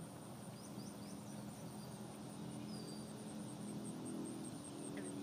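Insect chirping steadily, a high pulsing about four times a second. A few short bird chirps come about a second in, over a low steady hum that grows a little louder toward the end.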